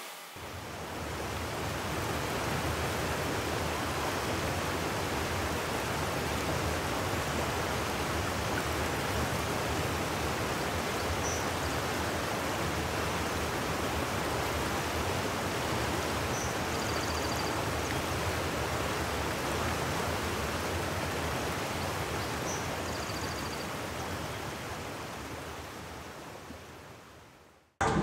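A steady rushing noise, like a stream or wind, with a few faint short high chirps; it fades out near the end.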